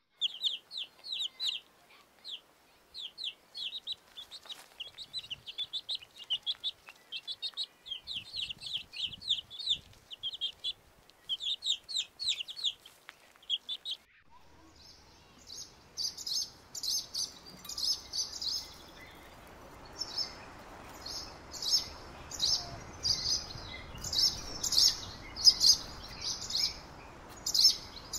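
A baby chick peeping in quick runs of short, falling notes. About halfway through, a steady outdoor hiss comes in and the chirps turn higher and more spaced out, a couple a second.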